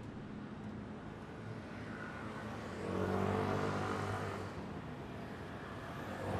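Road traffic: a motor vehicle drives past about three seconds in, its engine swelling up and fading away. Another car comes up and passes close near the end.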